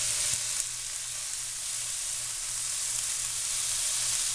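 Chicken breast tenders sizzling steadily in a pan on high heat.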